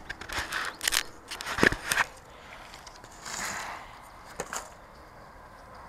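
Crackling, clicking and scraping as the broken foam pieces of a crashed RC plane are handled and picked up from the grass. A quick run of sharp crackles in the first two seconds, a brief rustle about three seconds in, and a few more clicks after that.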